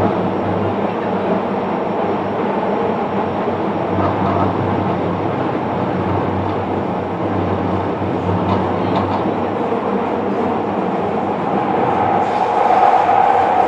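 Kobe City Subway 6000-series electric train running between stations: a steady rumble of wheels on rail with occasional rail-joint clicks. The noise grows louder about twelve seconds in.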